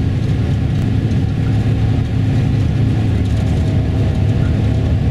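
Steady low rumble of engine and tyres heard from inside a tour coach travelling at speed on a highway.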